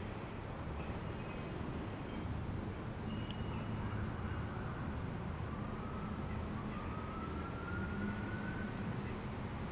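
Steady low rumble of street traffic, with a distant siren wailing and slowly rising in pitch from about halfway through.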